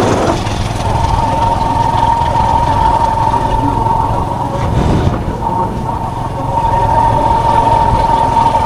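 Vehicle engine and road rumble while travelling, with a steady high whine starting about a second in.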